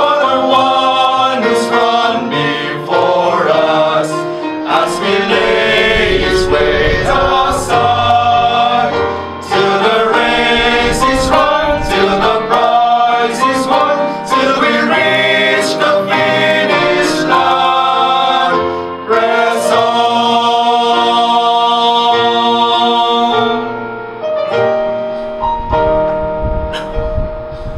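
Male vocal quartet singing a hymn in harmony over piano accompaniment. About 24 seconds in the voices stop and the piano plays on alone.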